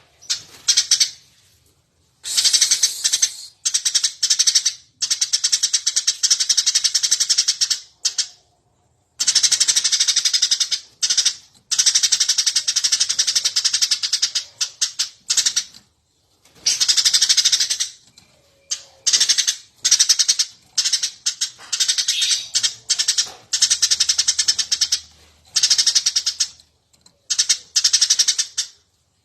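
Eurasian tree sparrows (burung gereja) chirping in full, lively voice: rapid, dense high chatter in stretches of one to four seconds with short silent breaks between.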